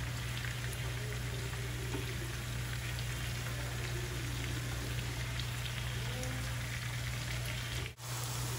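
Chicken pieces shallow-frying in oil in a pan: a steady sizzle with faint crackles, over a low steady hum. The sound drops out briefly near the end.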